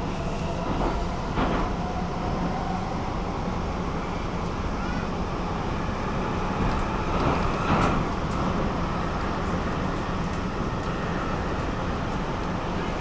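Stockholm metro train running between stations, heard from inside the carriage: a steady rumble of wheels on rail, with brief louder clatters about a second and a half in and again around eight seconds.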